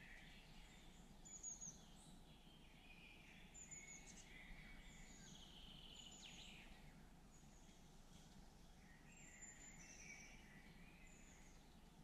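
Faint woodland birdsong: several songbirds singing at once, with short high, thin falling notes repeating every second or two over softer warbling.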